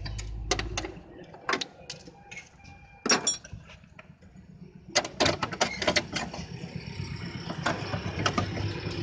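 Hands handling plastic wiring connectors and rubber vacuum hoses in a car engine bay: scattered clicks and knocks, a quick cluster about three seconds in, a rapid run of clicks around five to six seconds, then a softer continuous rattle.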